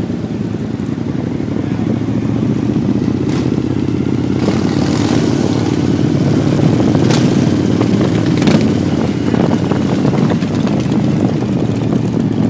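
A stream of V-twin touring and cruiser motorcycles riding slowly past, a continuous deep engine rumble that builds a little, with a few short sharp clicks over it.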